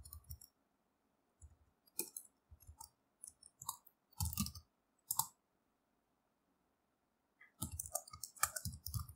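Computer keyboard typing: scattered keystrokes, a pause of about two seconds past the middle, then a quick run of keys near the end.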